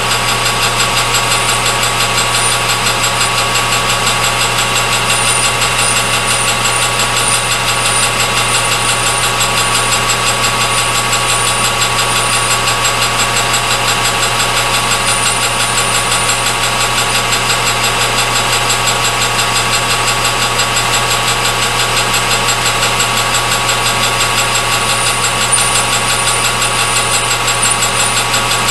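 Metal lathe running steadily: a constant hum with several steady high tones from the motor and gearing.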